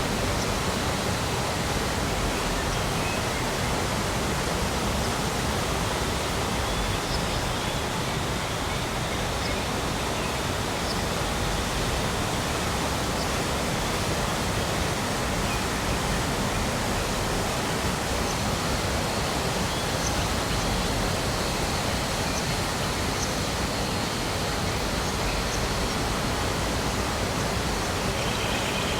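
Steady rushing of a tall waterfall of about 80 m, water falling and splashing without let-up.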